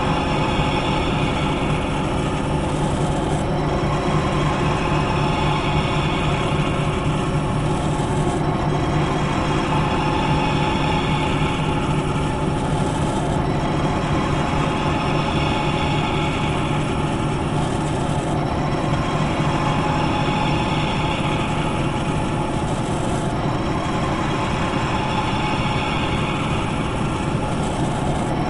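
Machinery running continuously with a steady low hum and several held tones. A cycle repeats about every five seconds, with a brief hiss-like swell each time.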